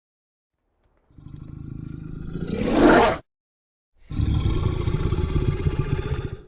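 Dinosaur vocal sound effects: a growl that rises into a loud roar and cuts off about three seconds in. After a short gap comes a long, low, rattling growl that stops just before the end.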